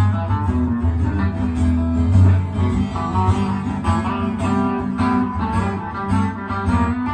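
Acoustic guitar strumming alongside an electric guitar in an instrumental passage of a song, with a steady bass line and no singing.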